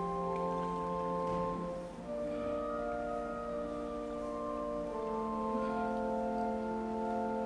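Church organ playing slow, held chords that change every second or two.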